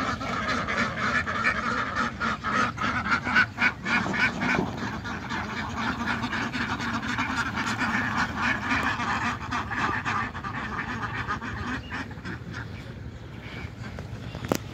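A large flock of domestic ducks quacking together in a continuous, overlapping chorus, loudest in the first few seconds and thinning out near the end.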